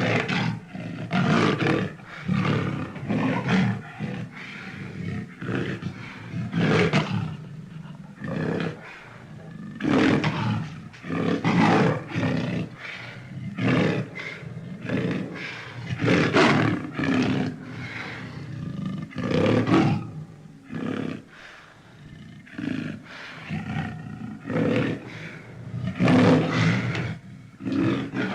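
Big-cat roars, the sound effects for a 'cave tiger': a long string of loud roars one after another, each lasting a second or two with brief gaps between them.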